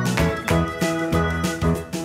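Instrumental background music with a steady beat.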